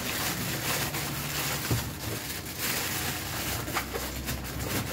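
Clear plastic bag rustling and crinkling as it is handled, with small clicks and knocks, over a steady low hum.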